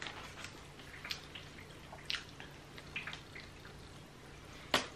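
Faint eating and food-handling sounds: scattered small clicks and smacks as a fast-food wrap is pulled apart over its paper and bitten into, with one sharper click near the end.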